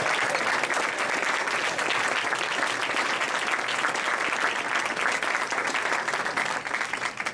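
Audience applauding steadily, a dense patter of many hands clapping that begins to die away near the end.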